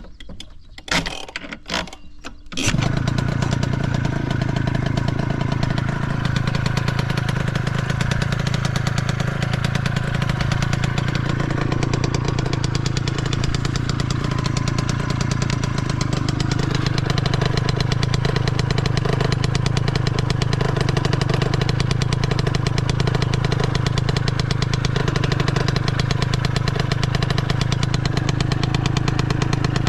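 Suzuki Hi Walter Wolf 50cc two-stroke scooter engine with a Mihara expansion-chamber exhaust starting: a few short knocks, then it catches about two and a half seconds in and idles steadily.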